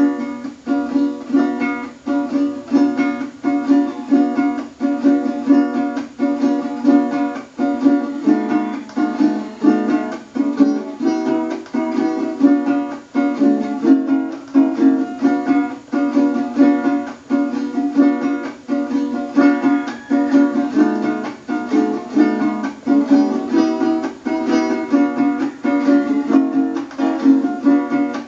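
Venezuelan cuatro strummed in a steady, even rhythm of chords, solo and without singing.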